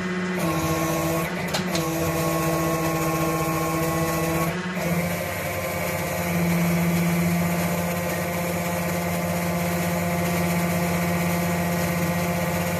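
Hydraulic press pump running with a steady, pitched hum while the ram pushes a sizing punch through a new bronze bushing in a connecting rod's small end. The pitch shifts a few times as the load changes and grows louder about six seconds in, with a brief click about a second and a half in.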